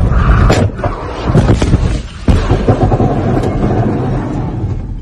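A supercar crashing, heard from inside the cabin: several loud impacts and crunching in the first two or three seconds over the engine's noise, which then dies down near the end.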